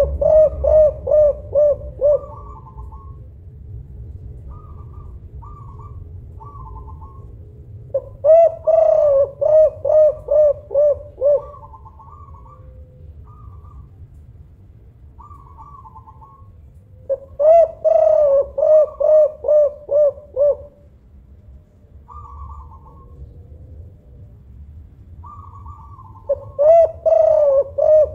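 Spotted dove cooing: loud phrases of quick, rhythmic coo notes, each lasting about three seconds and repeated about every nine seconds, with fainter, higher notes in between.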